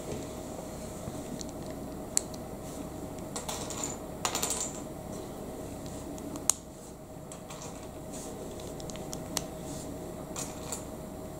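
Plastic Lego bricks clicking as they are pressed together and handled by fingers: a few scattered sharp clicks, a short rattle about four seconds in, and the loudest snap about six and a half seconds in. A faint steady hum sits underneath.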